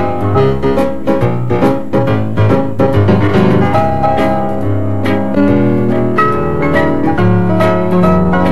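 Instrumental piano music, a quick run of notes over steady bass chords, with no singing.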